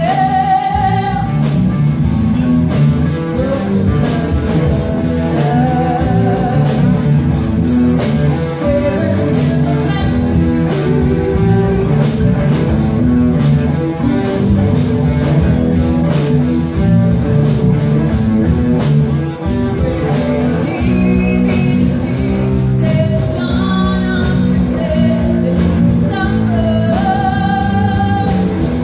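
Live rock band playing: a woman singing in phrases over electric guitar, bass guitar and a drum kit with a steady beat.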